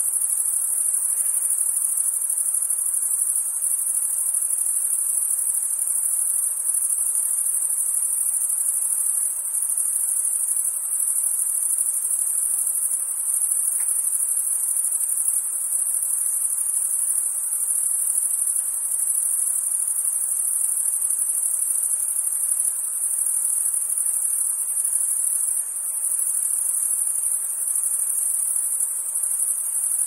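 Chorus of crickets and other night insects singing in a dense, steady, high-pitched trill without a break.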